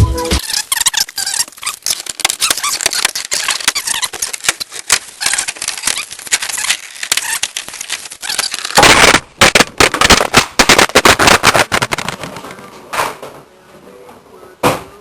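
Rapid, irregular clattering and clicking of work in a truck cab's interior, with a loud cluster of knocks about nine seconds in; it thins to a few separate knocks after about twelve seconds.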